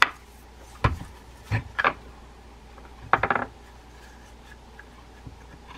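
Small clicks and knocks of a fishing reel's parts as the reel is handled and its side case is worked off, with a short rattle about three seconds in.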